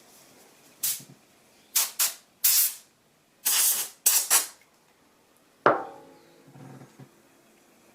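Seven short hissing bursts of air or spray in quick succession, then a sharp click with a brief ring about five and a half seconds in, followed by a faint low rattle.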